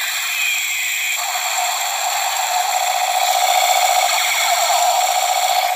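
Battery-powered toy space gun going off: a continuous, tinny electronic laser sound effect with many warbling tones, growing a little louder partway through.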